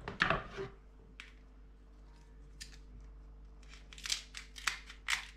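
Kitchen scissors snipping through the shells of cooked king crab legs, with crisp cracks of shell: a few scattered cuts, then a quick run of about five snips near the end.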